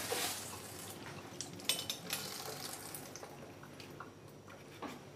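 Kitchen clatter: light clinks and knocks of dishes and utensils at the counter and sink, with a hiss that fades out within the first second.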